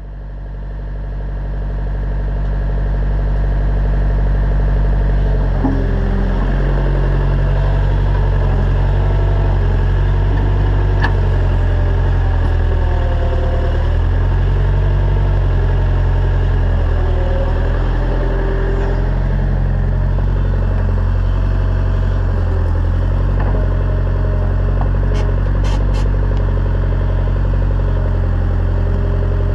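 Hymas 82R excavator's engine running steadily, fading up over the first few seconds, with a few faint clinks.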